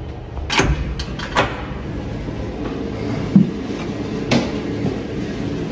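A steady low hum with a few sharp clicks and knocks, and one dull thump about three and a half seconds in.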